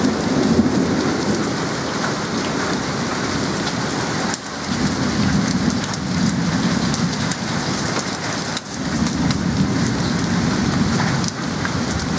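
Heavy rain and hail pouring down on the lawn, concrete path and house, a dense steady hiss with scattered sharp ticks of hailstones. Low rumbles swell and fade several times underneath.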